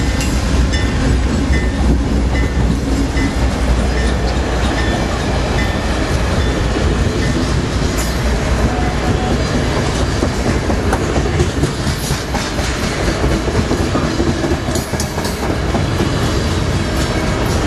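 An Amtrak passenger train passing close by at speed. The diesel locomotive's low rumble fades over the first few seconds, and the bi-level Superliner cars roll past with their wheels clacking over the rail joints. A railroad crossing bell dings steadily in the first few seconds.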